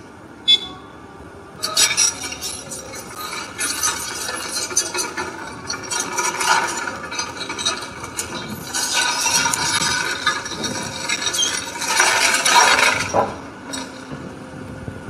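Timber and debris cracking and clattering as a hydraulic excavator's bucket tears into a collapsed wooden building frame: a dense run of cracks and rattles starting about two seconds in, heaviest near the end.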